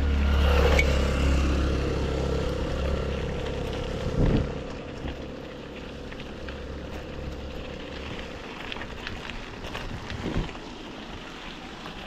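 Wind rushing over the microphone of a camera on a moving mountain bike, with a steady hum underneath. It is heaviest in the first four seconds and eases off after that, with a couple of brief low bumps.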